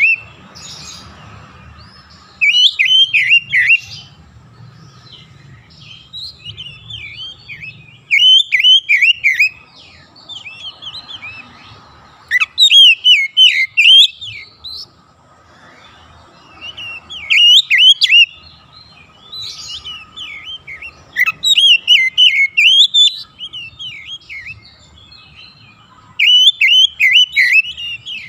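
Oriental magpie-robin singing: loud phrases of rapid, sweeping notes, each a second or two long, repeated every few seconds with short pauses between.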